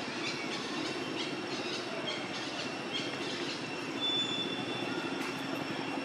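A baby long-tailed macaque gives a short high-pitched squeal about four seconds in. Under it runs a steady outdoor drone with several high whining tones.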